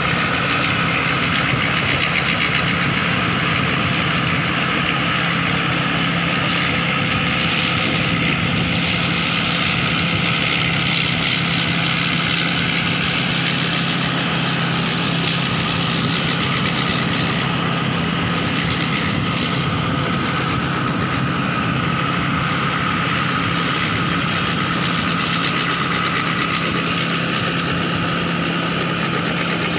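Kaset Pattana 'Ngoen Mee' rice combine harvester running under load while it cuts lodged, waterlogged rice. The engine and threshing machinery make a steady drone with a constant hum, which fades slightly as the machine moves away.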